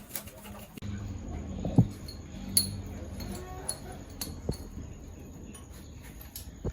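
Scattered sharp metallic clinks and knocks of hand tools on motorcycle engine parts, with one louder knock about two seconds in, over a low steady hum.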